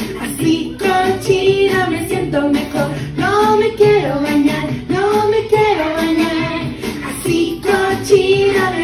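A Spanish-language children's song: voices singing over backing music.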